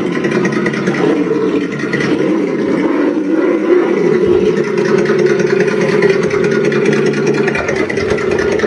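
An RC crawler's electronic engine sound kit playing a simulated engine through its speaker, running steadily with a few small rises and falls in pitch.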